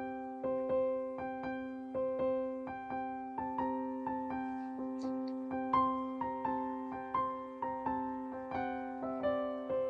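Background music: a gentle piano melody, its notes struck about twice a second over held low notes.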